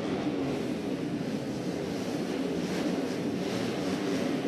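A grid of 130cc four-stroke underbone race bikes running together while waiting to start, a steady mixed engine drone.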